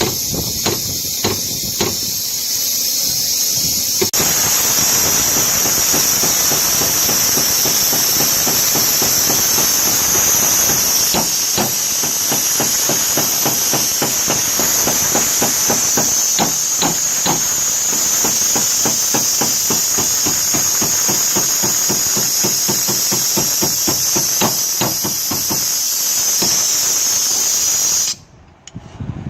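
Rapid hammer blows on car-door sheet metal, several a second, over a steady high hiss; both stop abruptly near the end.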